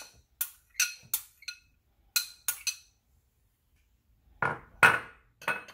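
Kitchen clinks: a glass mixing bowl, utensils and seasoning containers tapping and knocking together, a run of sharp bright clinks over the first three seconds, then, after a short pause, three louder, duller knocks near the end.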